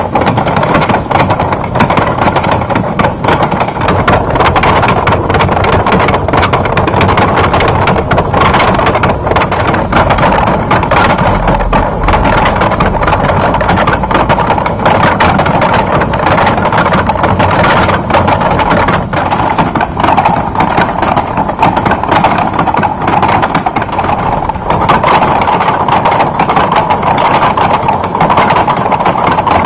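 Hand-cranked chain-and-sprocket machine working a table of mannequin feet, clattering in a dense, unbroken stream of wooden knocks and taps.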